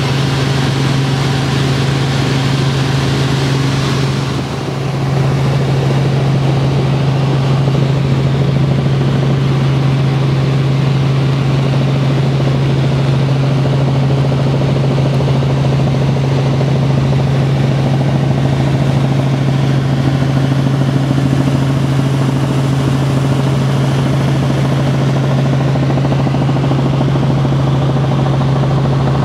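Helicopter in flight heard from inside the cabin: a loud, steady drone with a strong low hum under a rushing noise, dipping briefly about four seconds in.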